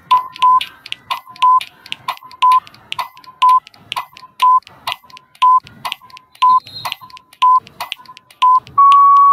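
Quiz countdown-timer sound effect: ticks about twice a second with a short beep once a second, then a long steady beep near the end as the timer runs out.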